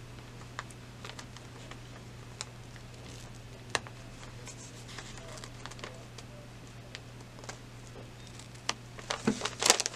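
Small scissors snipping through layers of fabric and stabilizer, faint short clicks spaced a second or more apart. Near the end, louder rustling as the cut fabric and stabilizer are handled.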